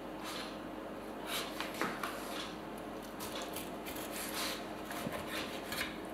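Kitchen knife scraping and slicing as flounder skin is cut away from the flesh on a plastic cutting board: a run of soft, irregular scrapes and rustles.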